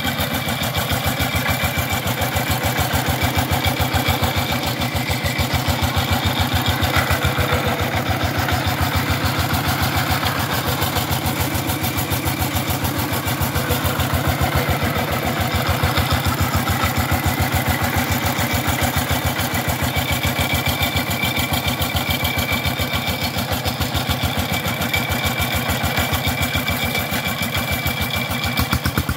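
Single-cylinder diesel engine of a công nông two-wheel tractor running with a steady, rapid thumping beat, the tractor bogged in mud.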